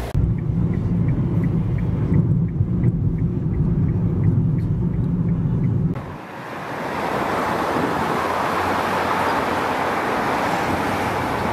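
A steady low rumble with a faint, regular ticking. About six seconds in, after a cut, it gives way to an even wash of road traffic noise from cars driving along a multi-lane city avenue.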